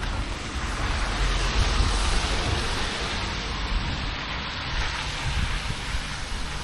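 Wind buffeting the microphone with an unsteady low rumble, over a steady rushing hiss that swells about two seconds in.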